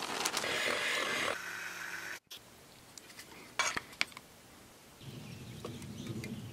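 Investment plaster powder poured from a plastic bag into a stainless steel mixing bowl, a rustling hiss lasting about a second. A few light clicks and knocks follow a couple of seconds later.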